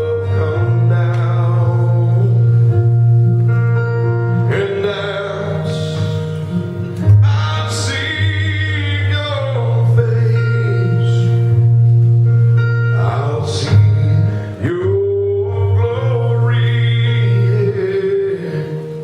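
Gospel worship song from a backing track: long held chords over a steady bass note, with singing voices over it.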